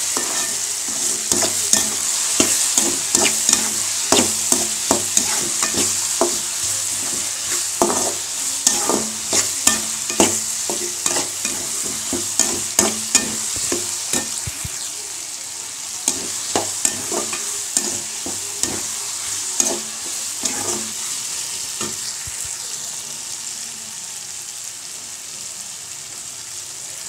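Diced bottle gourd, tomato and dried anchovies sizzling in oil in a kadai while a metal spatula stirs and scrapes against the pan in frequent clicks and knocks. The stirring strokes thin out after about twenty seconds and the sizzle gets a little quieter.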